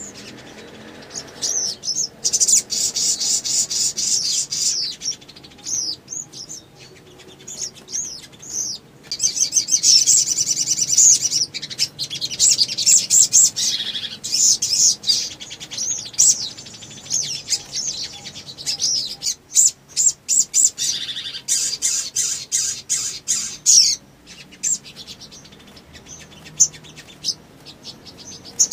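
Sunbird singing in long runs of rapid, high-pitched twittering and trills. The runs break off briefly and turn to sparser chirps near the end.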